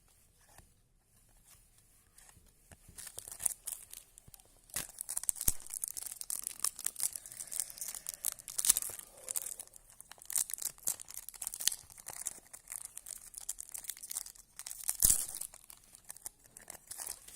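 Trading-card pack wrapper being torn open and crinkled, with the cards handled. Quiet for the first couple of seconds, then a long run of crackling, tearing rustle.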